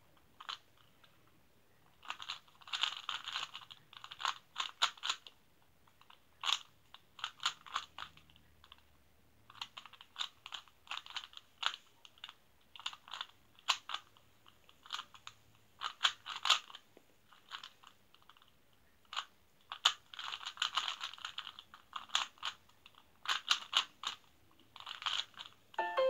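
Plastic Rubik's cube being turned by hand: quick runs of clicking, clattering layer turns with short pauses between them.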